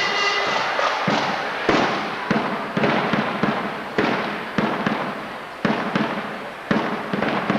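Marching band drums striking loud single hits at an uneven pace, about one or two a second, each hit ringing out in a long hall echo.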